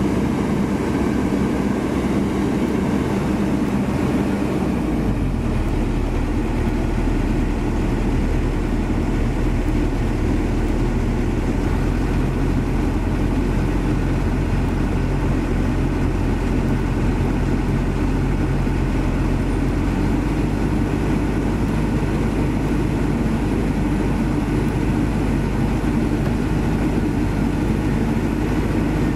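Kobelco SK200 excavator's diesel engine running steadily, with a change in its low note about five seconds in.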